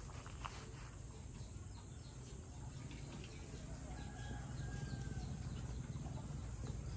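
Faint background with a low steady rumble and a distant bird call: a short, thin whistle about four seconds in.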